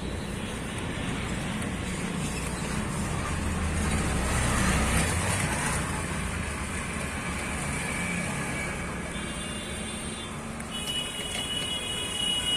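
Steady road traffic noise, with a vehicle's rumble growing louder and passing about four to five seconds in. Near the end a faint steady high tone joins it.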